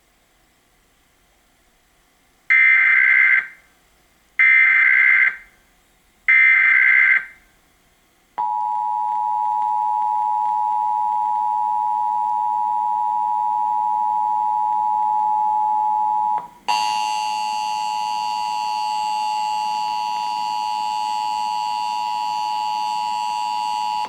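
Emergency Alert System signal: three short screeching data bursts (the SAME header), then the steady two-tone attention signal. The tone breaks off briefly about two-thirds of the way through and resumes with higher tones layered over it. It marks the required monthly test of the alert system.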